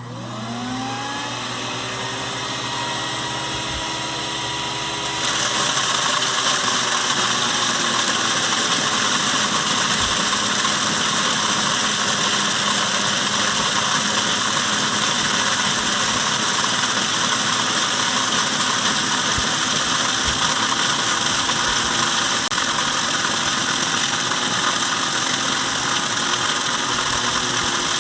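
Electric wood chipper motor starting and spinning up with a rising whine. About five seconds in, a much louder steady noise sets in as whole corn is fed through and cracked, and it runs on evenly.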